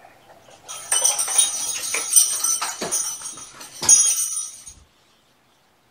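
Bright metallic jingling and rattling for about four seconds, with a couple of soft thumps near the middle, stopping suddenly about five seconds in.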